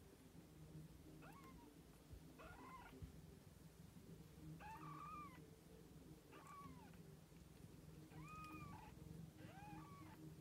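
Young Siamese kittens mewing faintly: about six short, high-pitched mews, a second or two apart, each rising then falling in pitch.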